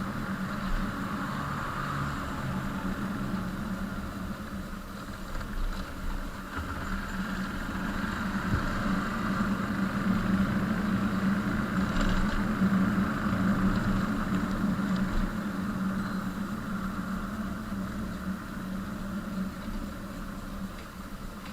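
A vehicle engine running steadily, its level swelling gently towards the middle and easing off near the end.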